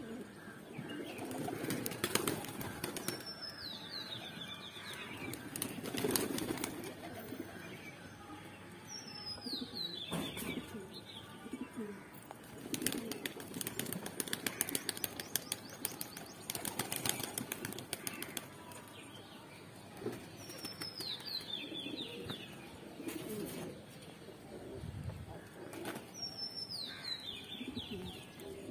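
A flock of domestic pigeons moving about, with repeated wing flaps and cooing. A high falling bird call comes about four times, several seconds apart.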